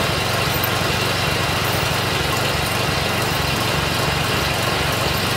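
Kohler Courage 16.5 hp OHV single-cylinder engine on a riding-mower go-kart, idling at a steady speed.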